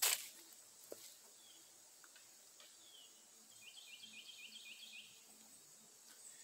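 A sharp knock right at the start, then soft footsteps in leaf litter and a bird calling a quick run of about six short notes about four seconds in.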